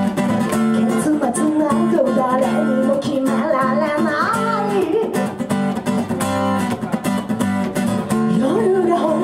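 Acoustic guitar strummed in a steady rhythm while a woman sings a melody over it, live through a PA. The voice pauses for a few seconds midway, leaving the guitar alone, and comes back near the end.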